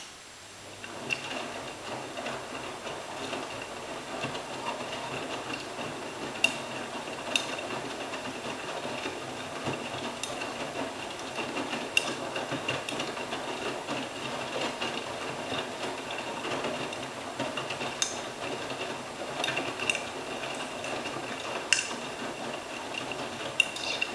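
AEG Öko-Lavamat 86760 front-loading washing machine starting to turn its drum about a second in during the wash phase, tumbling wet, sudsy laundry in a steady churn and slosh over a low motor hum and a steady high whine. There are occasional sharp clicks as the load turns.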